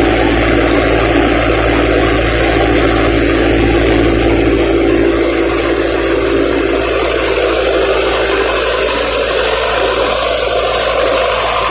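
Combine harvester running steadily, a loud, constant engine drone.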